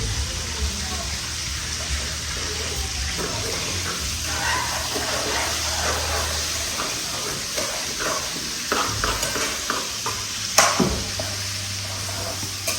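Steady sizzling hiss of food frying in a pot, with scattered light clinks and taps of cooking utensils and one sharp knock near the end, over a low hum that fades about halfway through.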